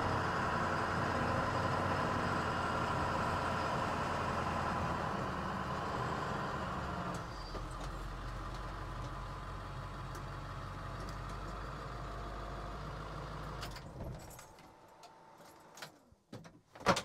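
A 7.3L Power Stroke V8 turbo diesel in a 1979 Ford F350 running steadily. Its low note changes about seven seconds in, and it cuts off about fourteen seconds in. A few light clicks follow, then a loud thunk near the end.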